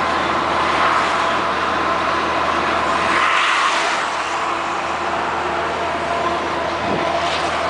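Scania R 420 truck heard from inside its cab while cruising on the highway: a steady diesel engine drone mixed with tyre and road noise and a constant whine. A brief swell of rushing noise comes about three seconds in.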